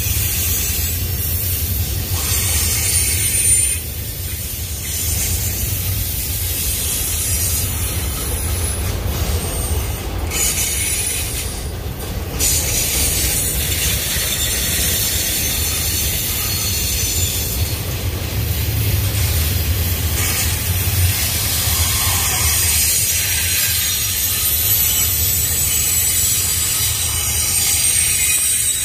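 Double-stack intermodal freight train rolling past: a steady low rumble of steel wheels on rail, with thin, high-pitched wheel squeal tones above it.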